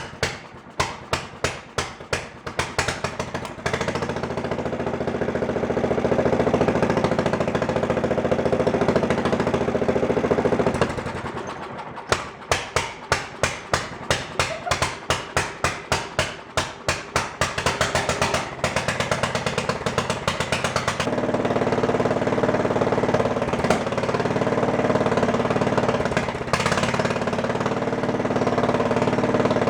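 Riding mower engine, run without its muffler, going in a rapid string of sharp pops about four a second, then catching and running steadily. Near the middle it falls away and pops again before settling into steady running. The builder blames the popping on missing exhaust back pressure.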